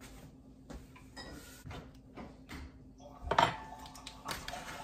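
Light kitchen clatter: a string of soft knocks and clicks of dishes or utensils being handled, with a louder clink that rings briefly about three and a half seconds in.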